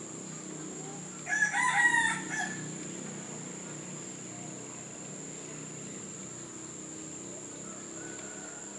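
A rooster crowing once, about a second in, a single loud call lasting about a second.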